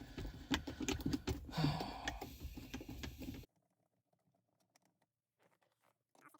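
Small clicks and light rattles of a screwdriver working Phillips screws out of plastic console trim. The clicking cuts off suddenly about three and a half seconds in, leaving near silence with a few faint ticks.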